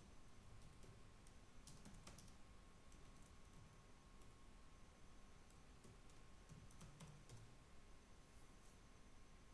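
Faint computer keyboard typing: scattered, irregular keystrokes in short clusters, over a low hiss with a faint steady high tone.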